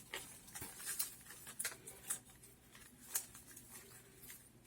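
Faint, scattered rustles and light clicks of palm-leaf strips being handled and pushed into a woven palm figure.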